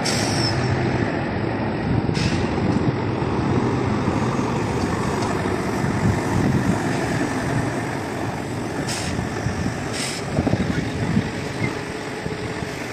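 Diesel engines of tractor-unit trucks with tipper semi-trailers running as the trucks move off, with three short hisses of air: one about two seconds in and two more near the end.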